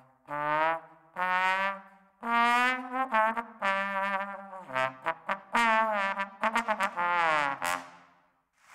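Solo trombone playing a lively phrase: a string of held notes, a quick run of short notes past the middle, and a last note that bends downward and fades out.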